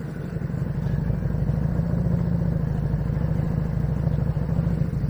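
FKM Victorino 250i's 250 cc V-twin engine running as the motorcycle rides along, with a deep pulsing exhaust beat. It grows louder over the first second, then runs steadily.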